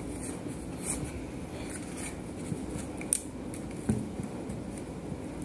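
Thin card backing being peeled and torn away from a foam-bead picture board: soft papery rustling with a few short sharp snaps, about one, three and four seconds in.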